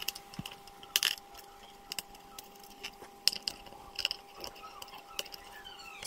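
Small screwdriver turning out the screws that hold a laptop's hard drive, making sporadic light clicks and scrapes against the screws and plastic chassis, about once or twice a second.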